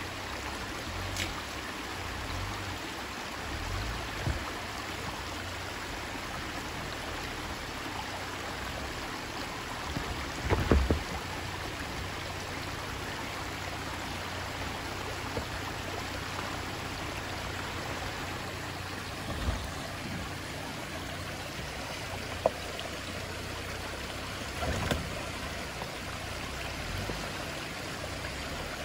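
Steady rushing wash like running water, with the low rumble of a 2021 Jeep Gladiator Willys crawling slowly over tree roots underneath. A few knocks and thumps come from the tyres and suspension dropping over the roots, the loudest about eleven seconds in.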